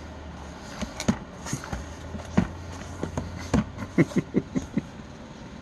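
A cardboard product box being handled: a string of irregular clicks and knocks over about four seconds, over a steady low hum.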